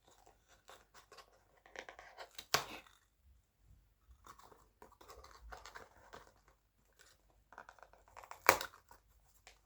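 Littlest Pet Shop blind-pack packaging being torn open and rustled by hand, crinkling on and off, with two sharp snaps, one about two and a half seconds in and a louder one near the end.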